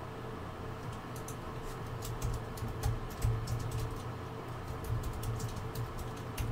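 Typing on a computer keyboard: a run of quick, uneven key clicks starting about a second in, over a low steady hum.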